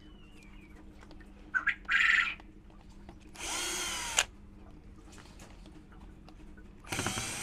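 Cordless drill with a Phillips bit spinning in short runs, backing screws out of the plastic pump head of a 12 V diaphragm sprayer pump. There are three runs, each under a second, about two seconds apart, and the run about two seconds in is the loudest and highest-pitched.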